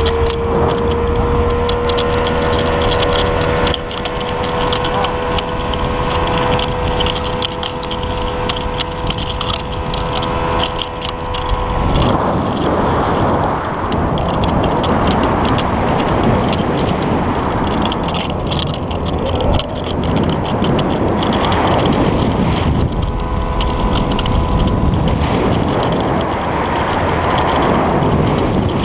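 Speedboat's outboard motor running at speed, a steady engine whine that creeps up slightly in pitch over the first dozen seconds. After that it is largely covered by a dense rushing noise of wind and water, with the engine tone coming through again near the end.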